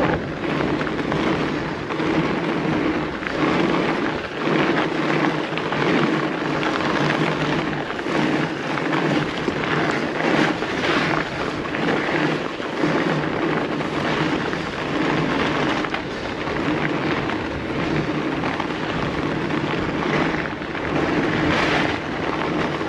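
Fat bike riding over a packed snow trail: a steady rumbling crunch of the wide tyres on snow, with the bike rattling, picked up close by a camera on the handlebars.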